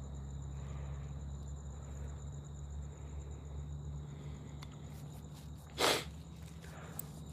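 Night insects trilling steadily over a low hum, with soft footsteps on grass. A short, loud rustling hiss cuts in just before six seconds in, and a few light ticks come near the end.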